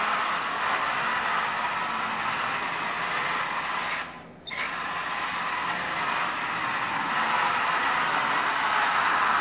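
Marx 1998 diesel toy train locomotive's electric motor and gears whirring steadily as it runs, with a brief drop-out about four seconds in. The unlubricated motor runs dry, which the owner hears as a dry armature.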